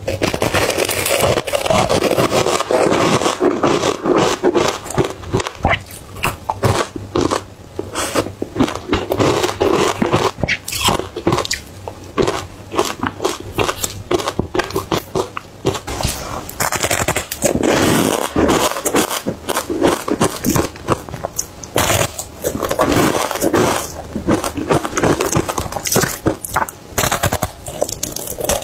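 Close-miked biting and chewing of frozen matcha ice chunks: a dense, continuous run of crunching and crackling bites.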